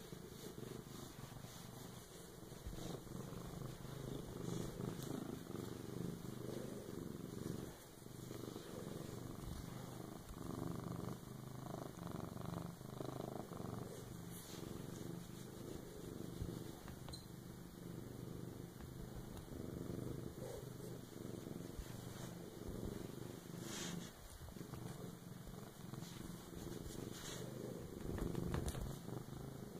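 Domestic tabby cat purring steadily while its belly is stroked, a low continuous rumble, with faint rustling of fur and handling on the microphone.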